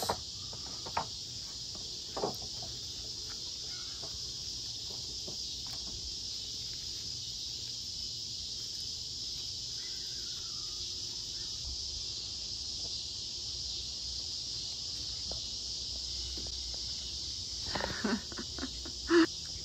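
Steady high-pitched chorus of insects, with a few faint clicks as meat is handled. Near the end come a few short, louder mouth sounds of chewing.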